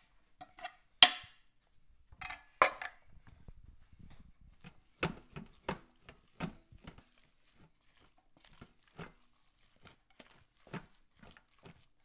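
Diced tomatoes knocked off a wooden cutting board into a slow-cooker crock, with a sharp knock about a second in, then a spoon stirring tomatoes and raw ground meat, scraping and tapping against the crock about every half second to second.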